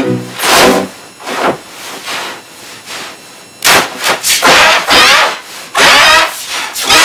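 Heavily distorted, pitch-shifted 'G major' effect audio: harsh, loud noisy bursts in an irregular rhythm, with a brief pitched tone at the start and a quieter stretch in the first half.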